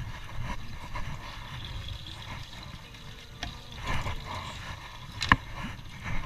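Steady low wind and water noise around a small fishing boat, with scattered handling knocks and clicks and one sharp click about five seconds in.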